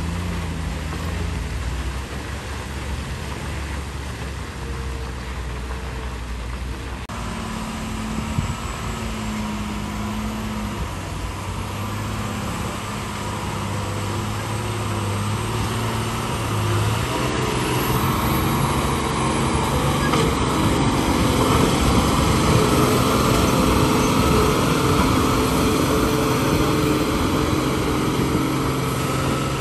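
Heavy multi-axle diesel trucks running steadily under load as they crawl through deep mud. About seven seconds in the sound changes to a second, loaded truck whose engine grows louder as it draws near.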